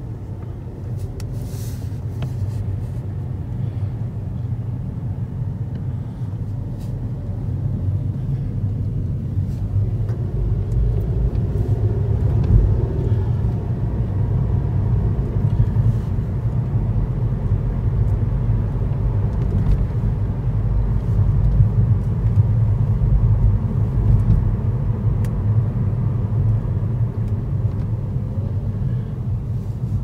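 A car driving, a steady low rumble of engine and road noise that grows louder about eight seconds in.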